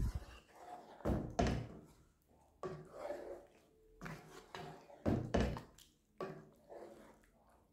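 Wooden spoon stirring thick curry in a granite-coated pan, the spoon knocking against the pan in a string of dull thunks, roughly one a second, with the wet stir of the gravy between them.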